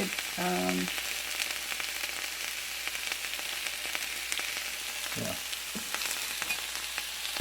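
Food sizzling and crackling in a hot frying pan, a steady hiss with scattered small pops.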